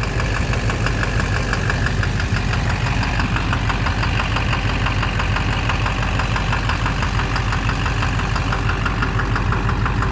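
Duramax LMM 6.6-litre V8 turbodiesel idling with a rapid, regular knock, heard close up from under the engine near the oil pan. The owner thinks it comes from the bottom end.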